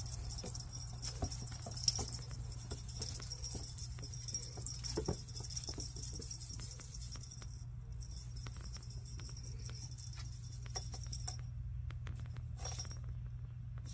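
Faint, fast jingling and crinkling from a kitten at play with a tinsel teaser wand, over a steady low hum.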